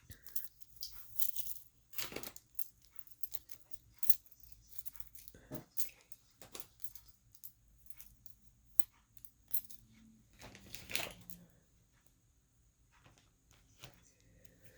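Small hard jewelry pieces, magnetic hematite beads, clicking and clattering against each other and the table as they are handled, in irregular light clicks with a few louder knocks, one near two seconds in and one about eleven seconds in.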